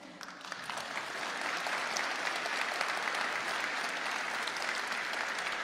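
A large audience applauding, swelling over the first second or so and then holding steady.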